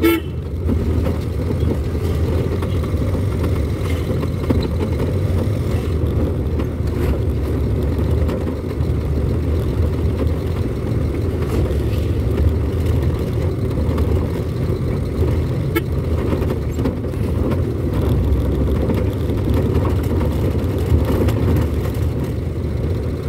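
Steady low rumble of a vehicle's engine and road noise heard from inside its cabin while driving.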